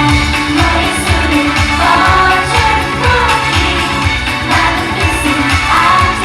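Thai idol-pop song performed live, with female singing over a steady dance beat.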